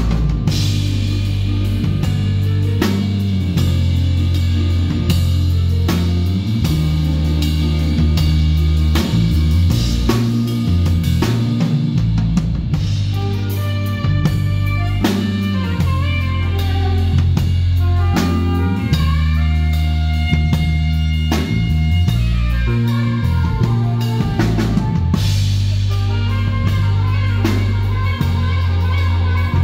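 Live band playing an instrumental passage: a drum kit and electric bass line, with a melodic saxophone solo over them from about halfway through.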